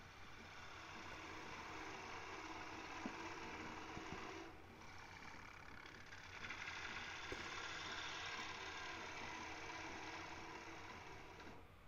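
Bowl gouge taking light cuts in the inside of a small wooden bowl spinning on a lathe: a steady hiss of shavings over the lathe's motor hum. The cutting pauses briefly about four and a half seconds in and stops just before the end.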